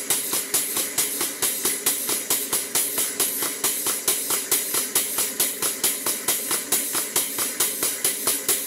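Model Southworth (Weir-type) steam pump running on steam, with a quick, even beat of exhaust chuffs and valve clicks over a steady hiss of steam. The pump has just freed off and started stroking, and steam is leaking from the bottom gland of the steam cylinder.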